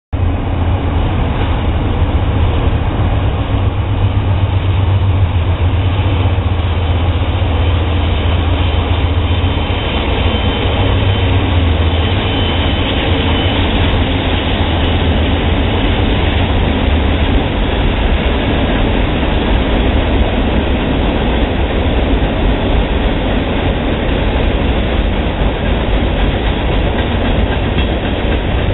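Freight train passing close by: the diesel locomotive consist led by a GE C40-9W (Dash 9-40CW) goes by with a heavy low rumble in the first half, then a string of covered hopper cars rolls past with steady wheel and rail noise. A brief high wheel squeal comes about twelve seconds in.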